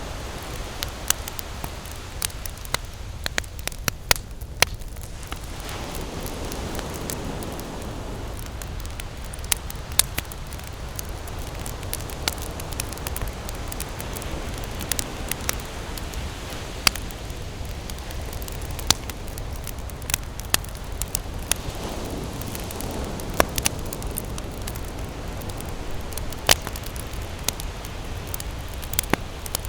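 Wood campfire crackling, with frequent irregular sharp pops and snaps over a steady low rush of burning.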